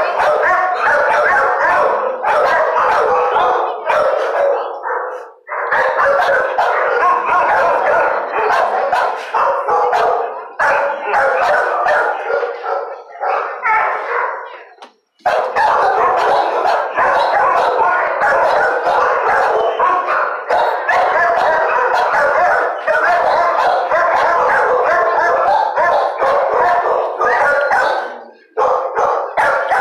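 Many dogs barking at once, a dense, continuous din of overlapping barks with brief lulls about five seconds in, about fifteen seconds in and near the end.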